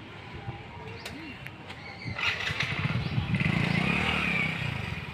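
A motor vehicle's engine passes close by. It grows louder about two seconds in with a rapid low pulsing, then fades near the end.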